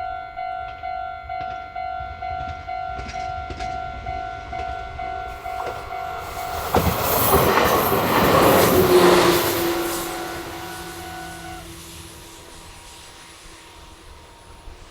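Japanese level-crossing warning bell ringing in a fast, even beat of about two and a half strikes a second. About seven seconds in, a Meitetsu train passes at speed, its wheels clattering over the rail joints; it is loudest around eight to nine seconds in and then fades. The bell stops shortly after the train has gone.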